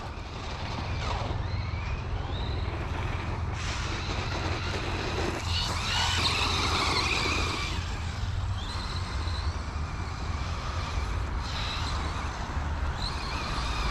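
FTX Crossbow 1/10 brushless RC truggy driving: its electric motor whine rises and falls in short glides several times as it accelerates and backs off, over a steady low rumble.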